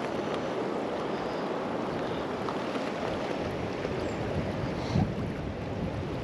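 Steady rush of flowing river water, with wind on the microphone, and one brief knock about five seconds in.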